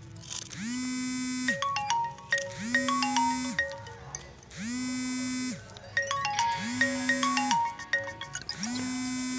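Background music: a looping electronic tune of short bell-like notes over a held low note that slides up and down, repeating about every two seconds.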